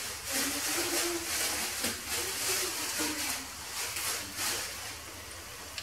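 Pieces of pastry dough frying in hot oil in a pan: a steady sizzle with uneven crackling surges as the oil bubbles around the dough.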